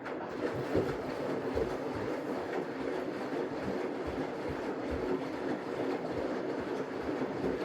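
Samsung AddWash front-loading washing machine in its rinse cycle, the drum tumbling the wet load: a steady rush of sloshing with irregular low thumps a few times a second, starting abruptly as the drum begins to turn.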